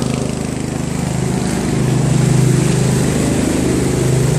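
Craftsman 13.5 hp riding mower's engine running steadily with a fast, even pulse, getting a little louder about two seconds in.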